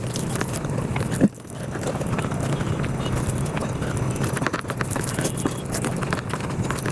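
Mukbang eating sounds played at five times speed: a dense, rapid patter of chewing and mouth smacks on rice and curry. One sharp knock about a second in, followed by a brief dip in level.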